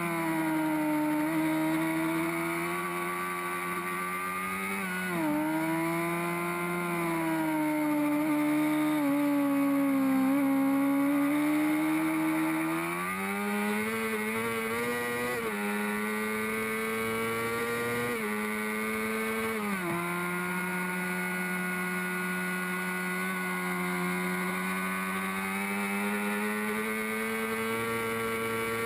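Honda CBR600RR race bike's inline-four engine running near the top of its rev range, heard from on board. The pitch glides as the throttle is worked and jumps up or down several times as gears change.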